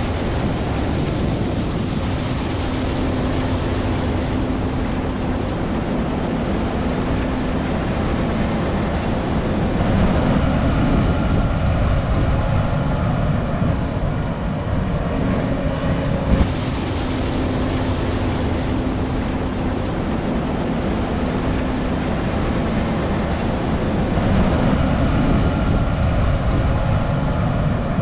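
John Deere S770i combine harvester running under load while harvesting rice: its six-cylinder twin-turbo diesel engine and threshing machinery make a steady, loud drone. The sound changes abruptly a few times.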